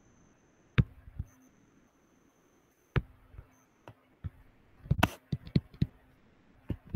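Stylus tapping and clicking on a tablet screen while handwriting: a few isolated taps, then a quick run of them about five seconds in.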